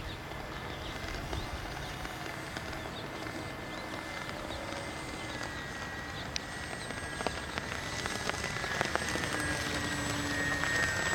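Faint steady whine of a radio-controlled model airplane's motor overhead, setting in about five seconds in over outdoor background noise with scattered light ticks.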